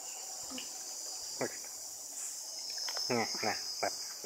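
Steady high-pitched drone of insects, with a few short voice-like calls rising over it, mostly clustered near the end.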